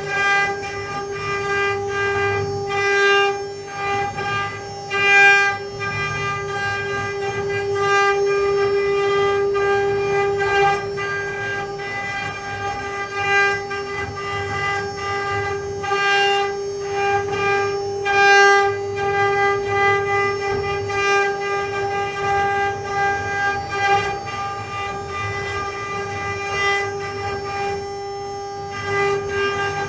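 Mini CNC carving router at work: the spindle's steady high whine over a low rumble, with a louder rasp every few seconds as the bit cuts into the workpiece.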